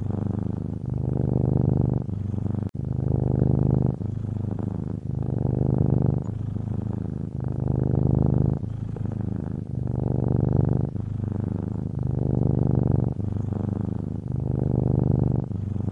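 Domestic cat purring: a steady low rumble that swells and eases about once a second as the cat breathes in and out.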